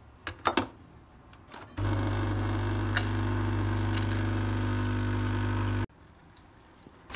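Nescafé Dolce Gusto capsule coffee machine's pump buzzing steadily as it brews coffee into a mug, for about four seconds before cutting off abruptly. A couple of light knocks come just before, as the mug is set under the spout.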